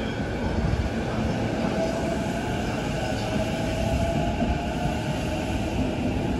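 JR Yokohama Line E233-series electric train running along the platform: a steady rumble of wheels on rail. A fainter whine rises a little in pitch midway through.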